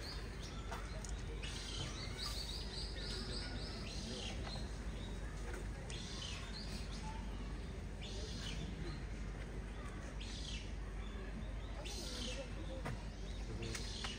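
Small birds chirping in short calls, with a quick run of repeated notes a couple of seconds in, over a background of distant people's voices.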